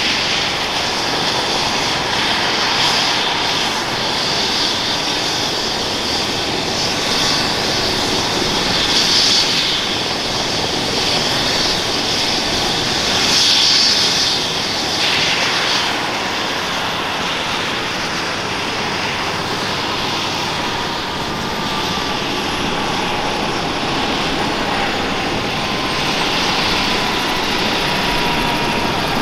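Airbus H135 (EC135) twin-turbine air-ambulance helicopter running on the ground with its rotor turning: a steady turbine and rotor noise with a few surges of hiss in the first half. From about halfway a faint turbine tone slowly falls in pitch.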